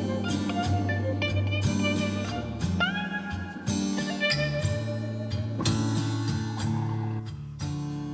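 Background music: a guitar-led instrumental in a blues or slide-guitar style, with a steady bass line and plucked notes.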